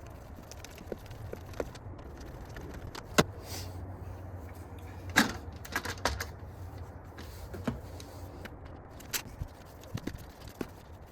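Irregular clicks and clinks of hand tools and parts being handled during work on a car's air intake hose, the two loudest about 3 and 5 seconds in, over a low steady hum.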